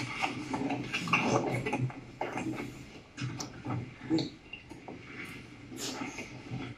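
Scattered light knocks and rustling of cardboard display boards being handled and set in place, with faint voices in the room.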